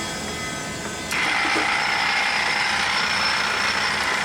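LeBlond 4025NK lathe's gearing running, then about a second in the rapid traverse motor switches on and a louder, steady mechanical gear noise takes over.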